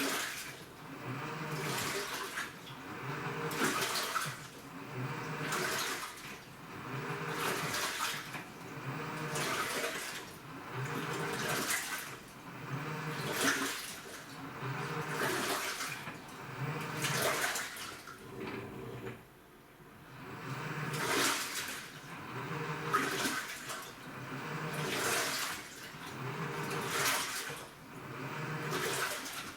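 AQUA washing machine with a direct-drive inverter motor, agitating its load: water churns in surges about every two seconds, each with a low motor hum, and there is a short lull about two-thirds of the way through.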